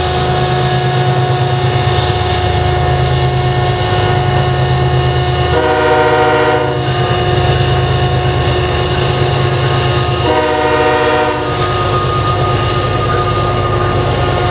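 Loaded coal train passing, led by GE diesel locomotives: engine rumble with a steady high whine from the GE units. Two horn blasts of about a second each sound about six and ten and a half seconds in.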